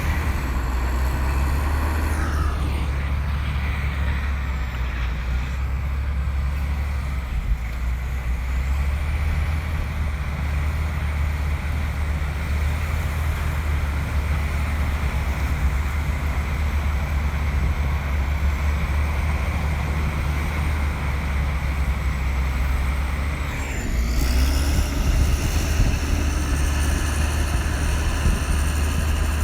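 Komatsu bulldozer's diesel engine running with a steady, deep rumble. About 24 seconds in it grows louder and brighter, with a short rising tone as the engine picks up.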